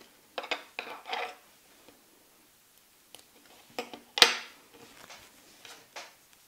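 Small handling sounds of goldwork embroidery: light rustles and clicks as metal purl wire and a needle are picked up and worked by hand, with one sharper click about four seconds in.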